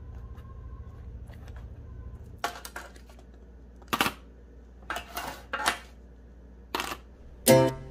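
Metal kitchen tongs clicking and clinking against fluted baking cups and a wire cooling rack as buns are set down: a handful of sharp separate clicks a second or so apart. A low steady hum lies under the first couple of seconds.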